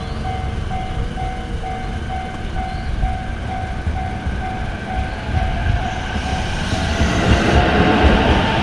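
Japanese railway level-crossing warning bell ringing with its electronic "kan-kan" tone, about two strokes a second. An electric commuter train's rumble builds up under it, and from about six seconds in the train drowns the bell as it arrives at the crossing.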